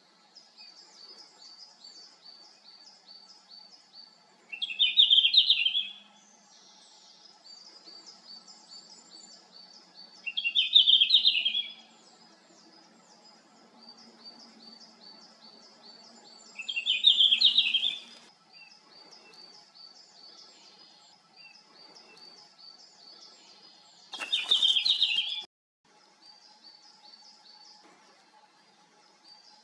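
Male red-flanked bluetail singing: four short, bright warbled song phrases, each about a second and a half long, repeated roughly every six seconds. A fainter, rapid, high ticking chatter runs continuously underneath.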